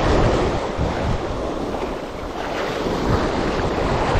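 Wind buffeting the microphone over the steady wash of sea waves.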